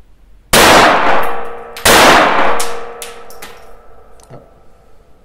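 Two shots from a Browning Buck Mark .22 LR pistol a little over a second apart, each ringing on for about a second. A few lighter metallic clicks follow as the slide is worked by hand.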